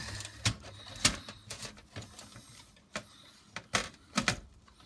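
A motherboard being set into a PC case and seated against its I/O shield: a series of irregular sharp taps and knocks with light scraping between them, the loudest about a second in and a cluster near the end.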